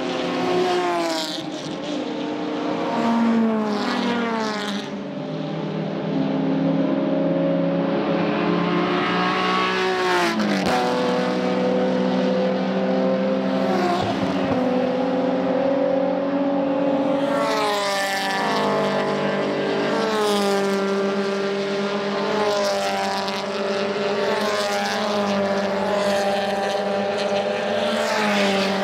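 Race cars from the GT300 and Toyota GT86 one-make classes passing at speed, engines and exhausts at high revs. Their pitch drops as each car goes by, several times over, and a pack of cars passes together near the end.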